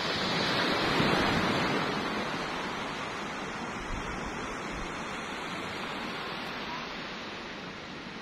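Small waves breaking and washing up a sandy beach: a swell of surf about a second in that slowly dies away into a steady wash.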